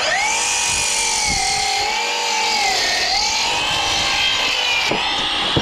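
Electric saw spinning up and cutting through a fir beam; its whine sags in pitch under load midway through the cut and starts to wind down at the end.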